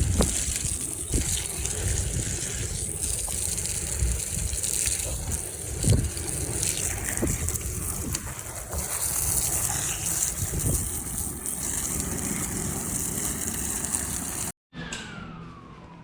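Pressure washer spraying water in a steady, loud hiss over a low rumble, with a few knocks. It cuts off suddenly about fourteen and a half seconds in.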